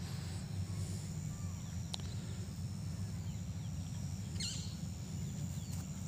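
Outdoor countryside ambience: a steady low rumble with faint bird chirps, one clearer call about three-quarters of the way through.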